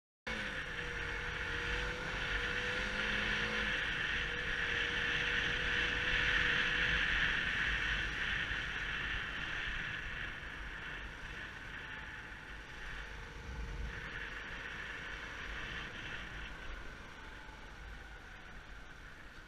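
Yamaha YBR125's small single-cylinder four-stroke engine running as the motorcycle rides along a street, with a steady rush of wind over the handlebar-mounted camera. The sound is loudest about a third of the way in and fades gradually over the second half.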